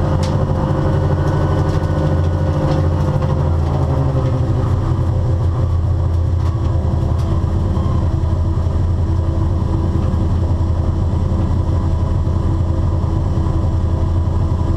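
BMW E36 race car's 2-litre M52 straight-six running at low revs, heard from inside the stripped cabin. The engine note eases down slightly in the first few seconds, then holds steady as the car rolls slowly.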